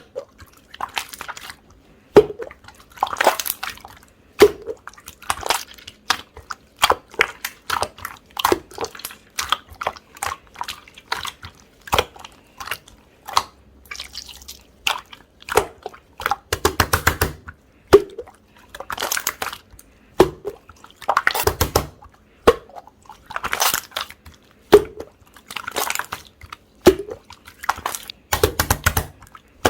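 Slime being squeezed and pressed by hand: wet squishes and sharp clicking pops at an irregular pace, several a second at times.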